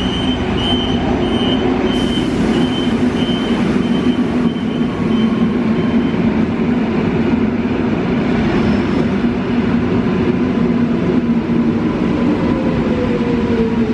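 SKM Trójmiasto EN71 electric multiple unit standing at the platform with a steady low hum from its onboard equipment. For the first five seconds or so a short high warning beep repeats about every two-thirds of a second as the doors close, and near the end a whine slides down in pitch.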